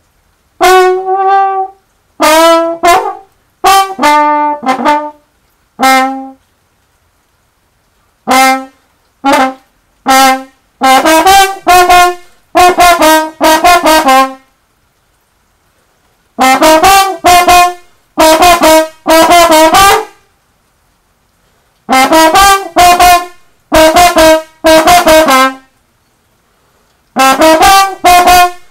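Trombone played in short phrases of quick, separately tongued notes, with brief pauses of silence between phrases.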